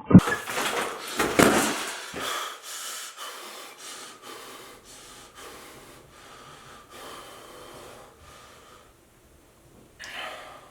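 A person panting hard and out of breath. Quick noisy breaths come about two a second and grow gradually fainter.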